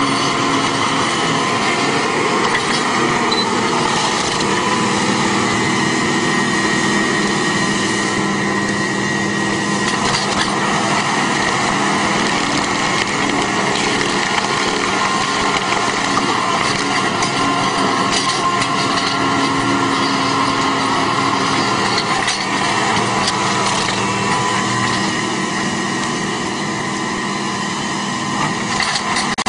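Tractor engine running steadily while a tractor-mounted rotary stump cutter grinds tree stumps into wood chips.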